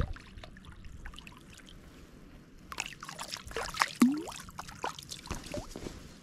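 A small wild brown trout splashing at the lake surface as it is drawn in on the line and grabbed by hand, with a flurry of splashes and drips from about three seconds in.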